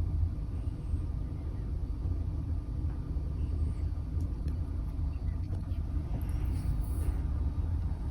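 Scottish Fold cat snoring, a low steady rumble.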